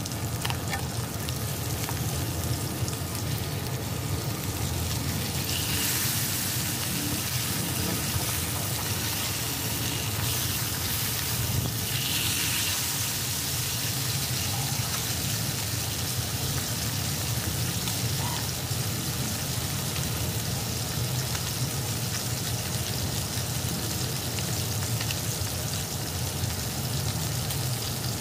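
Pork belly pieces and garlic sizzling and crackling in hot oil in a non-stick wok. The hiss swells louder twice, about six and twelve seconds in.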